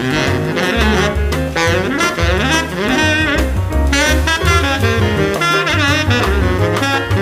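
Background jazz music: a saxophone plays the melody over a walking bass and drums.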